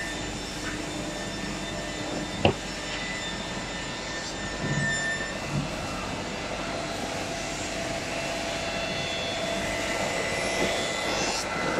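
Reignmac RMD6018E double end tenoner running steadily, its saw motors humming with several held tones as a solid wood cabinet door is fed through and trimmed at both ends. A single sharp knock about two and a half seconds in, and a couple of soft thumps around five seconds in.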